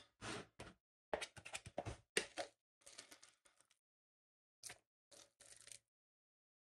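A plastic mixing bowl being grabbed and slid across a countertop: a run of short scraping and rubbing noises with brief gaps, softer toward the end.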